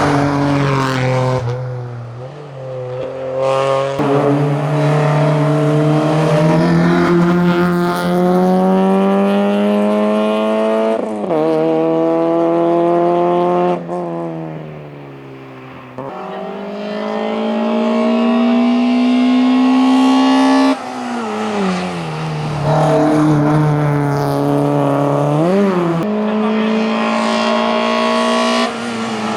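Small front-wheel-drive hillclimb cars, mostly a Citroën Saxo, running at full throttle. The engine note rises steadily through each gear and drops sharply at each upshift, several times over. There are dips and swells as the car nears and passes.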